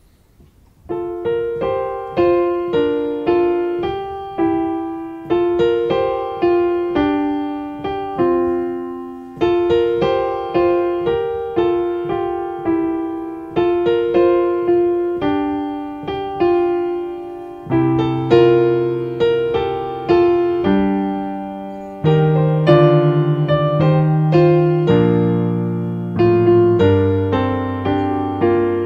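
Piano playing a slow hymn tune in struck, decaying notes, starting about a second in; lower bass notes join partway through.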